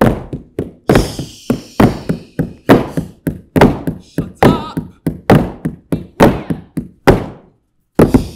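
Wooden walking sticks struck on a stage floor in a steady rhythm, about two to three knocks a second, echoing in the hall. The knocking stops near the end, then one last knock.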